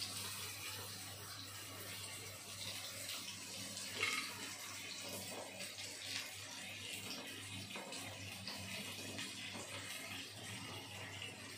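Steady hiss of chopped onions frying in oil in a kadai on a slow-medium flame, over a low steady hum, with a couple of faint clicks of a knife trimming French beans about four and six seconds in.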